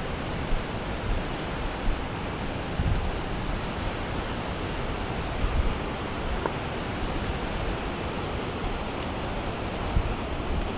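Steady roar of Lava Falls rapid on the Colorado River, a continuous rush of whitewater, with wind buffeting the microphone now and then.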